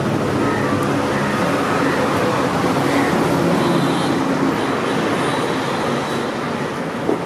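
Steady road traffic noise with a low engine hum, and one short knock near the end.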